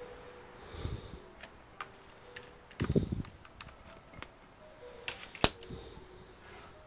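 Scattered clicks and light knocks from hands handling a laptop on a workbench, with a dull thump about a second in, a louder cluster of knocks around three seconds, and one sharp click at about five and a half seconds.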